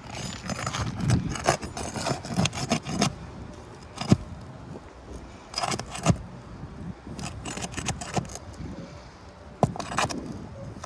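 Metal tool scraping and clinking under asphalt roof shingles while prying at roofing nails, with a few sharp knocks: about 4 and 6 seconds in and again near the end. The shingles are brittle and tear as the nails are worked out.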